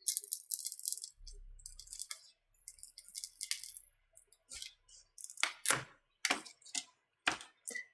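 Scraping and rattling as the cracked digitizer glass is pried off a tablet's frame, then a run of sharp clicks and ticks in the second half as the panel comes free.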